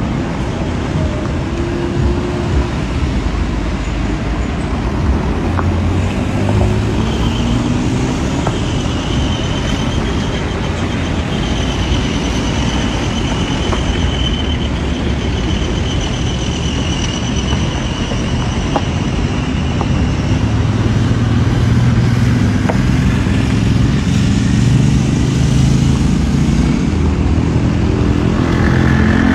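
Cars driving slowly in a line along a dirt road: a steady rumble of engines and tyres, with an engine drone growing louder over the last third.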